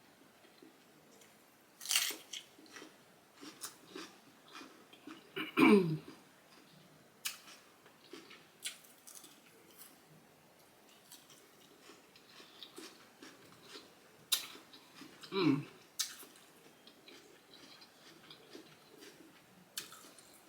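Close-miked chewing of turkey sausage, rice and cucumber: small crisp bites and wet mouth clicks. Twice, about six and fifteen seconds in, a louder short sound slides down in pitch.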